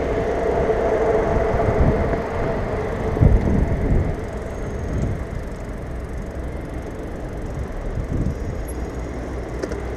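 Bicycle rolling over wet station paving, a steady rushing noise of tyres and moving air on the bike-borne camera, with a hum that fades out in the first couple of seconds and a few knocks from bumps about three seconds in.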